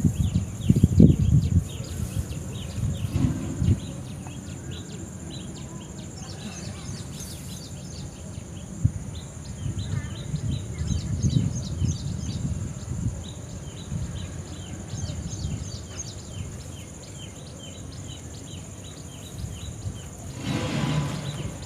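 Outdoor ambience: many short bird chirps scattered throughout over a steady high insect whine, with irregular low rumbling on the microphone that is loudest about a second in and near the end.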